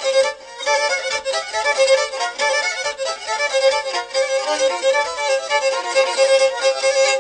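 Black Sea kemençe playing a fast horon dance tune: quick, short repeated notes over a steady drone.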